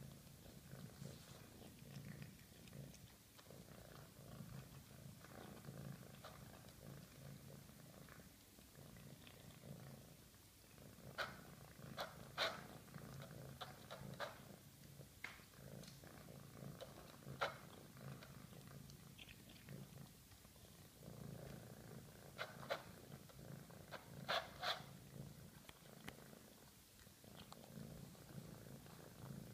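Domestic cat purring faintly and steadily, in a low pulsing rumble, while eating dry kibble. Scattered sharp crunches of the kibble come in the second half.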